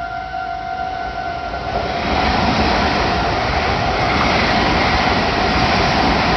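Level crossing warning bell ringing steadily. About two seconds in, a Meitetsu Nagoya Main Line train runs over the crossing, and its loud rumble and wheel noise largely cover the bell.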